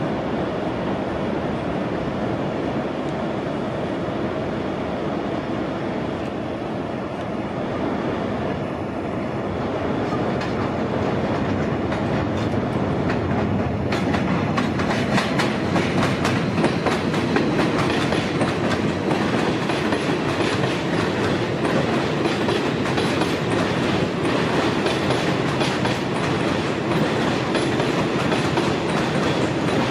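R68A subway train running on elevated steel track into the station. It starts as a steady rumble, grows louder about halfway through as the train comes alongside, and the steel wheels then clatter continuously over the rail joints.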